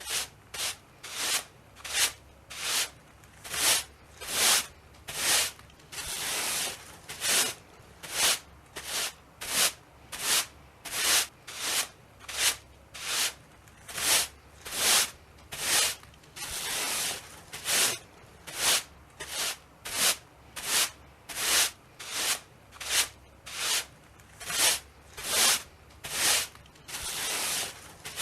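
Straw broom sweeping in short, brisk, regular strokes, about one or two a second, each a bristly scratch, with a few longer drawn-out sweeps in between.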